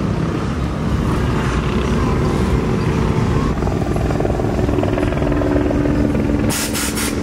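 Police helicopter rotor beating overhead, mixed with passing lowrider cars rolling by at low speed. A car engine's steady hum comes in about halfway through.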